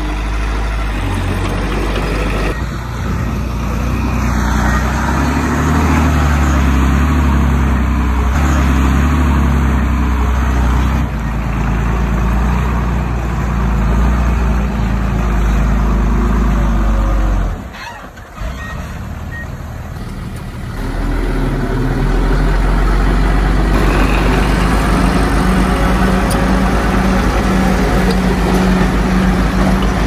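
Heavy diesel engines of earthmoving machinery (a bulldozer and dump trucks) running with a low rumble. The sound drops away briefly about 18 seconds in, then returns as a steady throbbing run.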